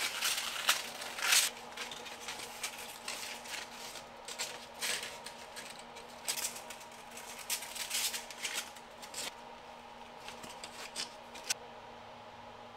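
Belt grinder running with a faint steady hum while a hardened 1084 steel knife blade is pressed to the abrasive belt to grind the bevel. Each pass is a short scratchy hiss, and the passes come at irregular intervals.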